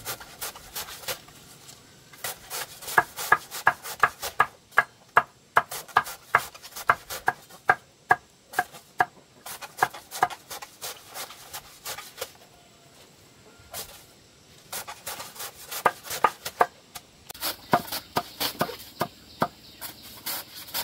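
Rapid runs of sharp knocks, about three a second, each with a short ring, pausing for a couple of seconds midway.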